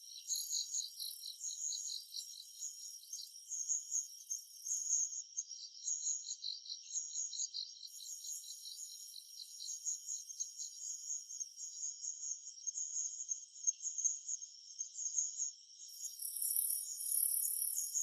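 Summer forest insect chorus: several insects singing at once in high, rapidly pulsing trills, with a still higher buzzing song that fades out about five seconds in, returns for a few seconds, and comes back near the end.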